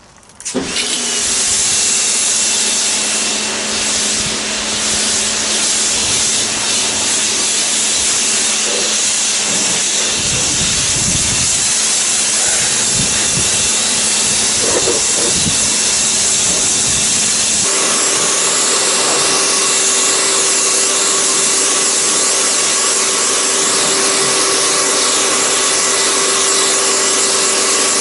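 Kärcher K2 electric pressure washer running, its water jet spraying with a loud, steady hiss over the hum of the motor and pump. The spray starts about half a second in, and the motor's hum changes pitch about two-thirds of the way through.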